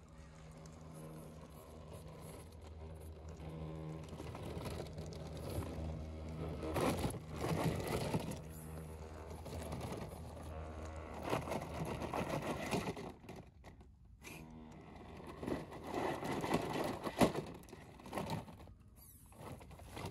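RC scale crawler's electric motor and gearbox whining as the truck drives, the pitch and loudness rising and falling with the throttle. Several stretches of crunching and scraping come from the tyres and chassis working over rough ground, with one sharp knock about 17 seconds in.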